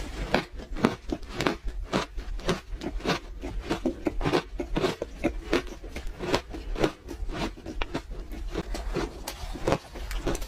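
Close-miked chewing of crunchy ice, with a rapid, irregular run of sharp crunches, several a second.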